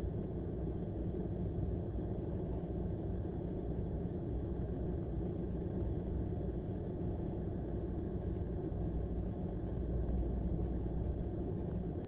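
Car engine idling, a steady low rumble heard inside the cabin, a little louder about ten seconds in.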